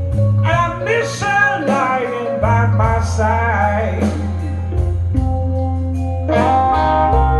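Blues song played back through hi-fi loudspeakers: a singing voice with bending phrases over electric guitar and a steady bass line, the singing giving way to guitar about four seconds in.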